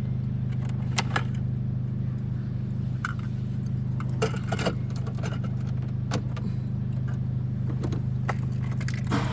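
Keys jangling and clicking at the ignition in short scattered rattles over a steady low hum.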